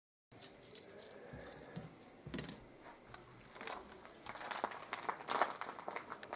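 Coins dropped beside a baby in a crib: a few light, faint metallic clinks, spread out at irregular moments.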